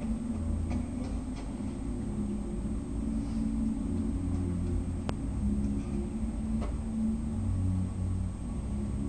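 Steady low mechanical hum of aquarium equipment such as a filter or air pump, with a few faint clicks and one sharper click about five seconds in.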